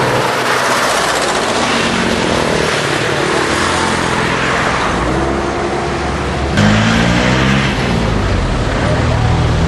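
Car engines running as a slow line of vehicles creeps along, under a steady hiss of noise. About two-thirds of the way in it gets louder and a low droning tone joins in.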